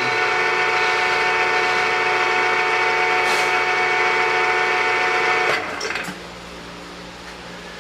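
The 3-in-1 lathe-mill's spindle motor runs at steady speed with a whine, driving a two-flute end mill. About five and a half seconds in it is switched off, and the sound drops sharply to a low steady hum.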